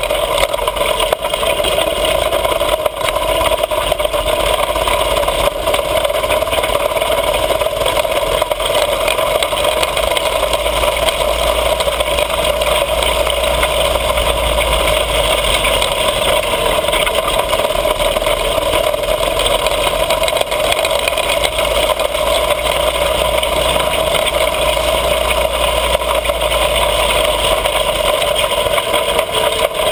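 Mini bike's small engine running steadily at an even speed while riding, with a steady low wind rumble on the microphone.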